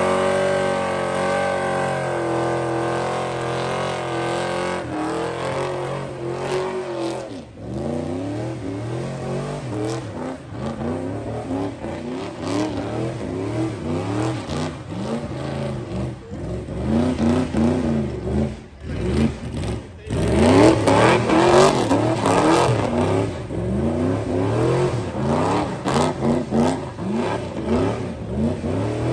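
A car's engine held at high revs during a tyre-smoking burnout. From about seven seconds in it is revved up and down over and over in quick swells, loudest around twenty seconds in.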